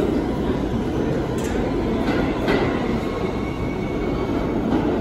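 New York City Subway R160 train pulling out of an underground station, its wheels and motors running steadily as it moves away along the track. A faint high wheel squeal sets in about halfway through, with a couple of short clicks from the rails.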